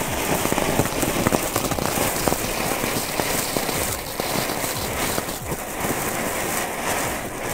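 Ground firework fountain (volcano) burning, a steady hiss of spraying sparks with many fast little crackles through it.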